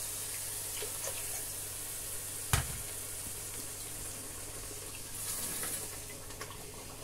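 Water poured from a jug into a pot of thick egusi soup, with one sharp knock about two and a half seconds in, then a wooden spoon stirring the thick mixture with faint scrapes and clicks.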